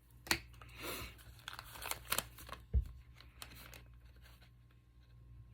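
Paper and card being handled: short crinkling and tearing rustles, with a soft thump on the work table near the middle.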